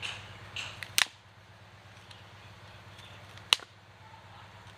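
Dried cow-dung fuel sticks being snapped into short pieces by hand: two sharp, loud cracks, one about a second in and another about two and a half seconds later, with a few lighter snaps just before the first.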